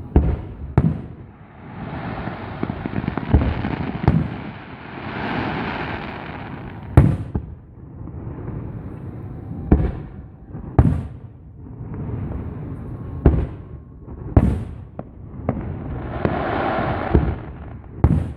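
Fireworks show: a series of sharp aerial shell bursts, roughly one every couple of seconds, with crackling and hissing from the shells between the bangs.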